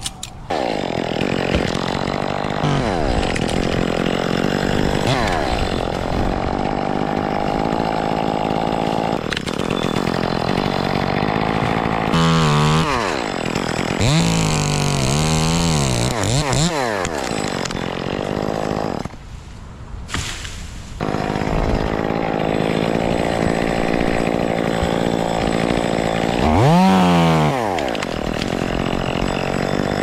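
Chainsaw running under throttle while cutting wood. Its pitch dips and climbs several times a little before the middle and again near the end, and it falls quieter for about two seconds just past the middle.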